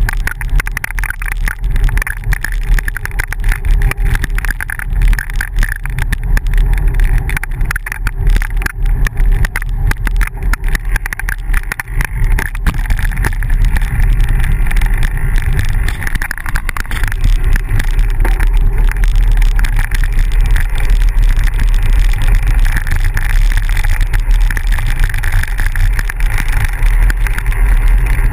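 Steady wind rumble on the microphone of a camera riding along on a bicycle, with the crackle of tyres rolling over a gravel dirt road.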